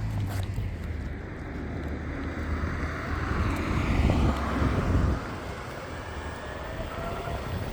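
Meepo Hurricane electric skateboard rolling over pavement on honeycomb wheels: a steady low rumble of wheel and road noise mixed with wind on the microphone. It swells louder for a couple of seconds midway, then drops off sharply about five seconds in, leaving a lighter hiss with a faint motor whine.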